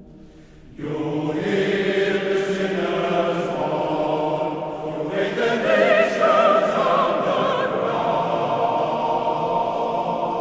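Male voice choir singing with piano and organ accompaniment, coming in much louder about a second in after a soft held chord.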